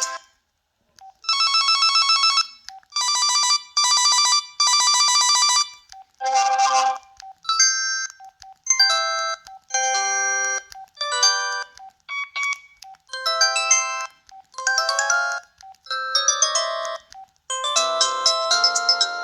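Preloaded ringtones of a Pantech PN300 phone playing through its speaker. After a brief pause comes a rapid electronic trill rung in three bursts, then a melodic tune of short notes, and another tune starts near the end.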